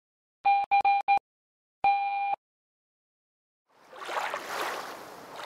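Four short electronic beeps in quick succession, then one longer beep on the same steady tone. After a short silence a rushing noise sets in and swells and ebbs, like waves washing in.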